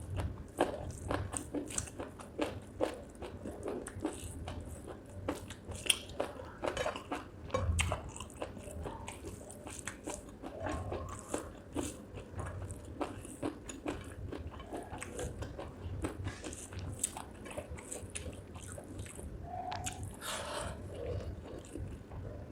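Close-up chewing and biting of spicy chicken gizzard with rice: a steady run of irregular mouth clicks and smacks.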